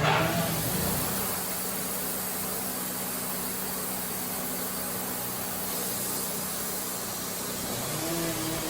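Steady rushing machine noise with a faint low hum under it, the sound of a motor or blower running without change.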